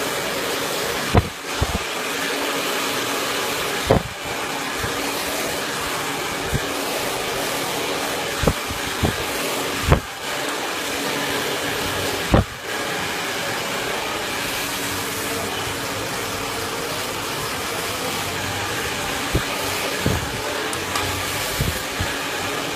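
Handheld hair dryer running steadily during a round-brush blow-dry, a constant rushing hiss of air and motor. A few brief knocks break through it, the sharpest about ten seconds in.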